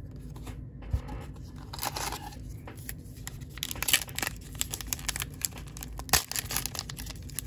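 A baseball card pack's wrapper being torn open and crinkled by hand: a ragged run of tearing and crackling with a couple of sharper rips.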